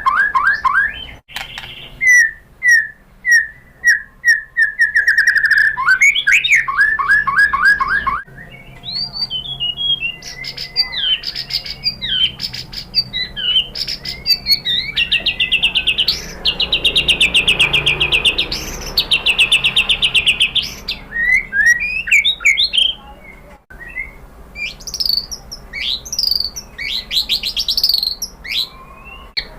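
White-rumped shama (murai batu) singing a varied, fast song of rapid repeated notes, whistles and long rattling trills, broken off abruptly a few times.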